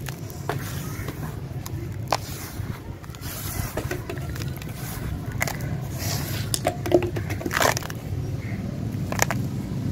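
Dry crumbly sand-and-cement mix being crushed in the hands and let fall into a plastic bowl: gritty crunching and falling grains with scattered sharp crackles, a few louder snaps among them. A steady low hum runs underneath.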